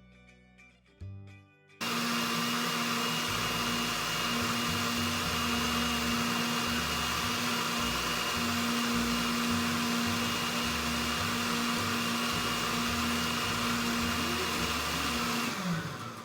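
Blender running steadily as it liquefies water, cucumber and lemons. It starts abruptly about two seconds in and winds down with a falling pitch near the end.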